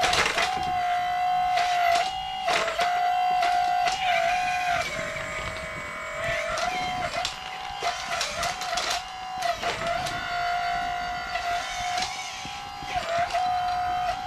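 Small electric motor of a radio-controlled model construction machine whining at a steady pitch, dipping briefly every second or two as it takes load, with sharp clicks and knocks of plastic and metal parts working.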